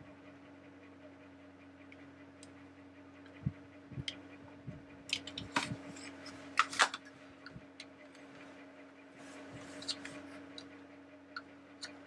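Scattered light clicks and taps of a small plastic motor-and-gear housing being handled and its gears worked by hand, irregular and loudest through the middle, over a faint steady hum.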